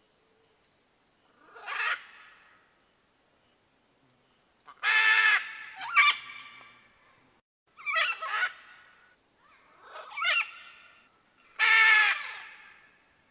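Red-and-green macaw (arara-vermelha) giving loud, harsh squawking calls, about six of them a second or two apart, over a faint steady insect buzz.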